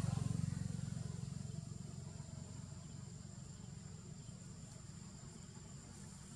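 Low engine rumble of a passing motor vehicle, loudest at the start and fading away over the next couple of seconds, with a steady thin high whine underneath.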